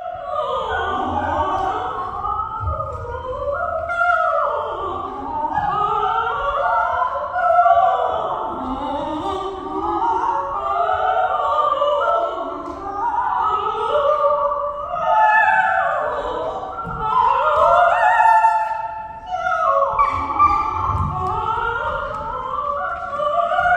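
A woman's voice singing continual wordless birdsong: quick swooping and warbling glides up and down, with only short breaks.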